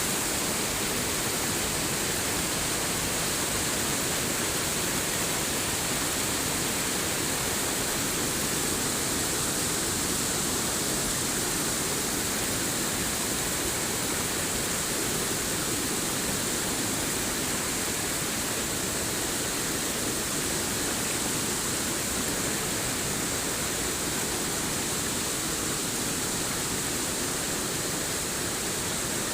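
Steady rushing of flowing water, an even unbroken hiss with no changes.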